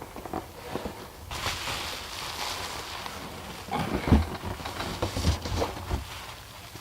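Rustling and a few soft bumps and knocks from handling a cardboard toy box and the plastic toy inside it.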